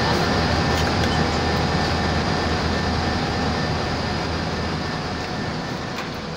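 Steady cockpit noise of an Airbus A320 airliner in climb, the rush of airflow and engine noise with a couple of faint steady tones. It fades gradually over the last couple of seconds.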